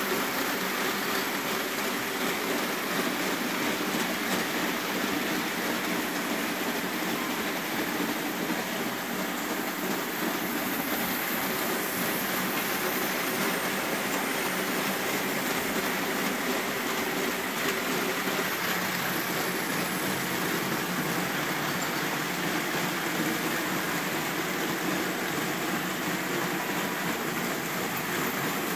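Model railway trains running on the layout's track: a steady, even rolling noise of many wagon wheels on the rails together with the electric locomotive motor.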